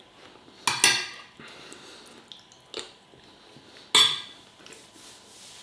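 Cutlery clinking against a plate while eating: two sharp clinks, one about a second in and a louder one about four seconds in, with a fainter clink between them.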